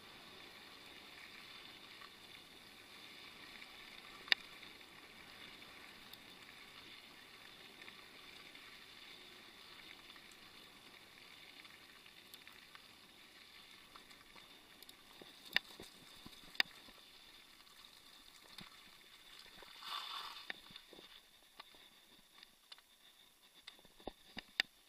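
Mountain bike rolling along a gravel path: a steady hiss of tyres on gravel and wind, with a few sharp clicks and knocks from the bike, a brief louder swell about twenty seconds in, and more frequent clicks near the end as the trail gets rougher.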